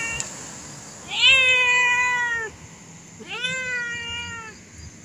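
Tabby-and-white cat meowing: two long drawn-out meows about two seconds apart, each rising at the start and then sagging slightly, the first louder.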